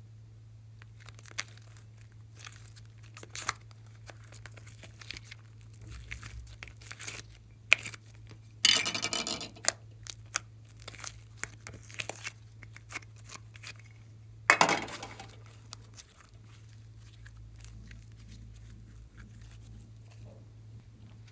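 Fluffy slime being squeezed, stretched and kneaded by hand, giving off scattered sticky crackles and pops. About nine seconds in there is a longer, louder stretch of crackling, and another sharp burst a little before the fifteen-second mark.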